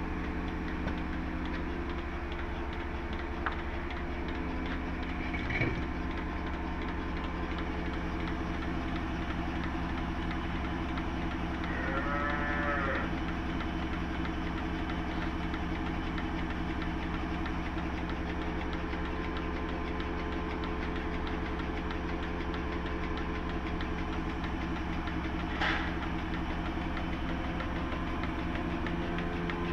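A cow mooing once, a short call that rises and falls in pitch about twelve seconds in. Under it runs a steady, engine-like machine hum.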